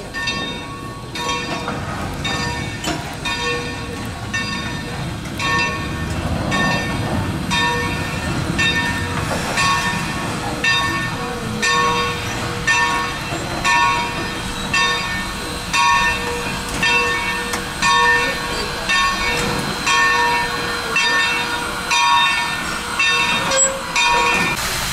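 Bell of a 2-8-2 Mikado steam locomotive ringing steadily, about one stroke a second, as the engine rolls slowly past at close range, over the low rumble of its running gear.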